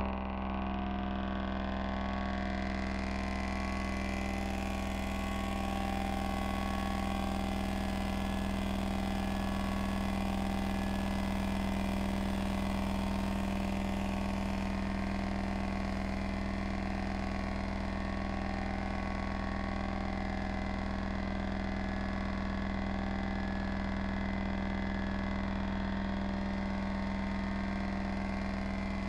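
Ambient synthesizer drone music: many held tones layered over a strong low hum, unchanging in rhythm, with a bright upper shimmer swelling in over the first few seconds and thinning about halfway through.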